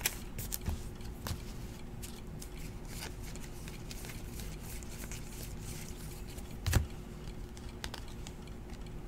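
Trading cards being flipped through by hand: faint ticks and slides of card stock, with one louder thump about seven seconds in, over a faint steady hum.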